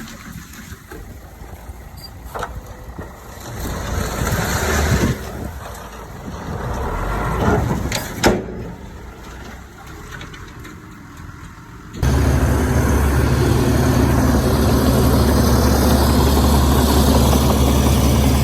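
Heavy diesel engine of earthmoving machinery running at a distance, uneven, with a few sharp knocks. About twelve seconds in it switches abruptly to a loud, steady, low engine drone heard close up.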